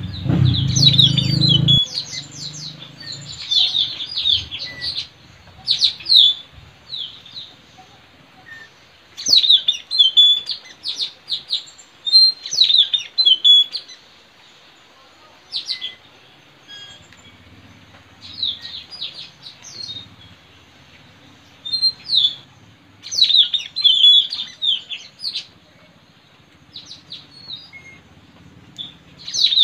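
Wild parrots known as puling or tanau calling: clusters of short, sharp, high chirps every second or two, with quiet gaps between. This is a field recording meant as a lure for trapping these parrots. A low rumble sits under the calls for the first two seconds.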